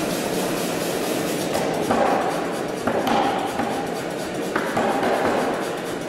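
Anyang 25 kg self-contained air hammer running, its built-in compressor making a steady mechanical noise. About a second and a half in, it starts pounding hot steel in spells of rapid blows, each spell lasting a second or so with short pauses between them.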